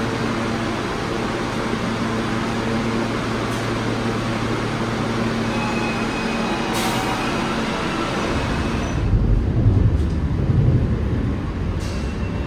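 Subway station ambience: a steady low mechanical hum, then from about eight seconds in a louder low rumble that swells and fades, typical of train noise in an underground station.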